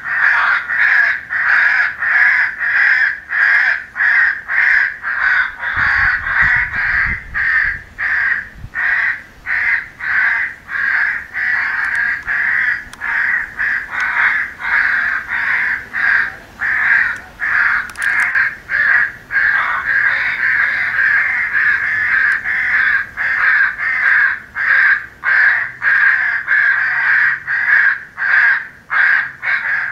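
A flock of crows cawing over and over in a dense, overlapping chorus, about one or two caws a second with hardly a gap. This is a recorded crow-call sound file meant for playback through an electronic game caller.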